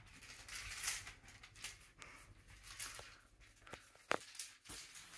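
Faint rustling and scratching on futon bedding, denser in the first two seconds, with a few sharp clicks about four seconds in.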